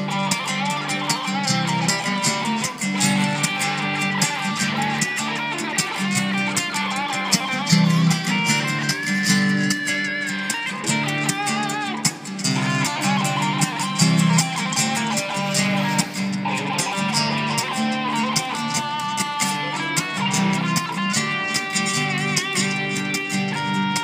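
Electric guitar playing a melodic lead line with bent and wavering notes, over a steady, rhythmic low bass part that changes notes with the chords.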